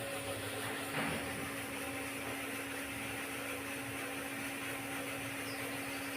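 Electric motor of a plastic-sheet cutting machine running with a steady hum, with one faint knock about a second in.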